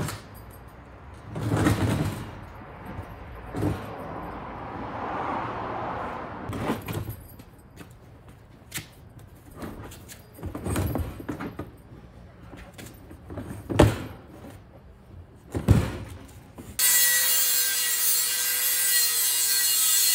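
Handling noise from the wooden board shell of a rooftop tent being moved and fitted together: scraping and rubbing with several sharp knocks, the loudest about 14 s in. Near the end, background music starts abruptly.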